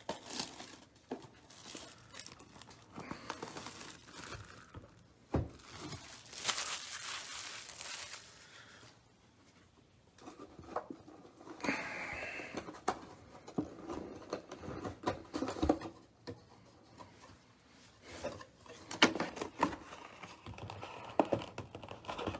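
Plastic shrink-wrap being torn and crinkled off a sealed trading-card hobby box, loudest a few seconds in. After a short lull, the cardboard box is handled and its lid opened, with scattered light knocks.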